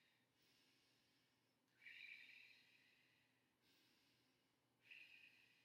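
Faint, slow breathing paced to a core exercise: one longer breath about two seconds in and a shorter one near the end.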